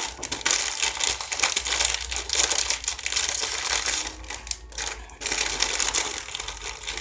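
Snack packaging crinkling and crackling as it is handled and opened, with short pauses about four and five seconds in.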